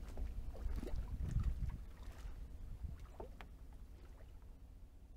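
Water lapping and splashing against a moving kayak's hull over a low wind rumble on the microphone, with a few small clicks; the sound fades away from about two seconds in.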